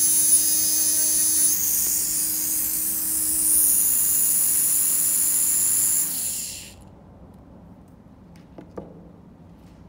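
High-speed electric micro grinder with a 90° angle head, running with a high-pitched whine while its black point works a metal block. It winds down, falling in pitch, and stops about six and a half seconds in. A few faint taps follow near the end.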